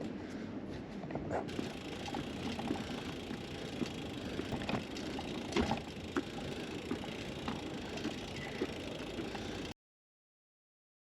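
Randonneur touring bicycle on the move: a steady rolling noise with scattered clicks and rattles. The sound cuts out completely about ten seconds in.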